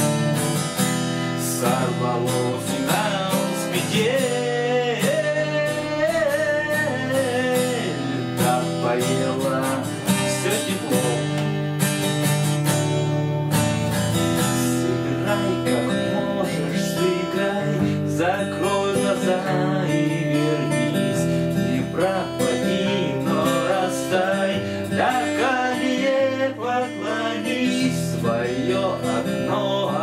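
Acoustic guitar strummed in a steady rhythm, with a man singing a song over it.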